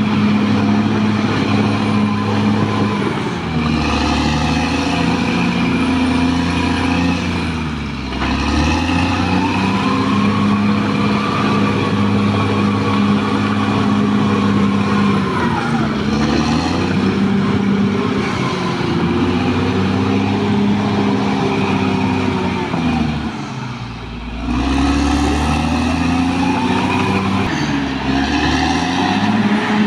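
Caterpillar D6R XL bulldozer's diesel engine running hard under load. Its pitch sags and recovers several times, about every five to eight seconds, as the load comes on and eases off.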